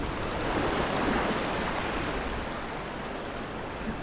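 Surf washing in: a wave's rush of water swells about a second in and slowly dies away, with wind on the microphone.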